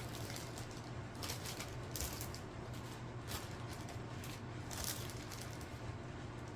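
Faint rustling and crinkling of small plastic bags of diamond painting drills being handled, a few brief rustles over a steady low hum.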